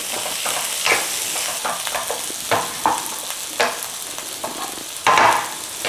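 Chicken pieces, green pepper and onion curry paste sizzling in a nonstick frying pan, stirred with a wooden spatula that scrapes and knocks against the pan several times, with a longer scrape about five seconds in.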